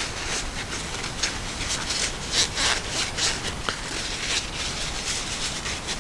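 A knife's button lock being wiped clean by hand: irregular scratchy rubbing strokes, loudest a little past two seconds in.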